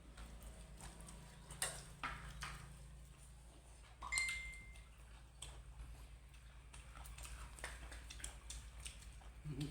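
Scattered light clicks and taps of eating utensils against dishes, over a steady low hum. About four seconds in, a sharper strike on a dish rings with a clear tone for about a second.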